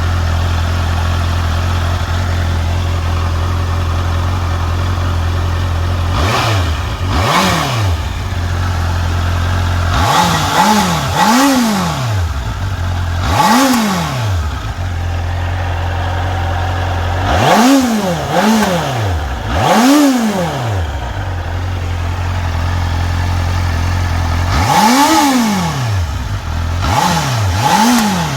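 Honda CBR650R's inline-four engine, on its stock exhaust, idling steadily, then revved in about a dozen short throttle blips from about six seconds in. The blips come singly or two or three in quick succession, each rising and falling in pitch and dropping back to idle.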